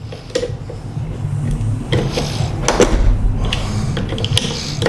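Screws on a shotgun's AR stock adapter being tightened by hand, with scraping tool clicks and low rumbling handling noise against the gun and bench.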